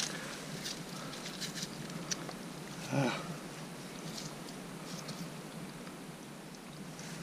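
Fingers digging and crumbling through wet, forked-over muddy sand, with faint scattered crackles and scrapes. A short, louder sound stands out about three seconds in.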